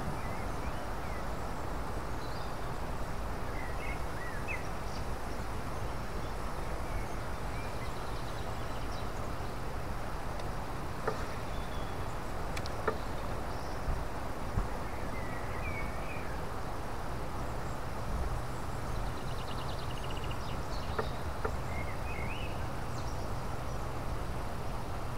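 Open-air river ambience: a steady low background noise with scattered short bird chirps, and a few faint clicks.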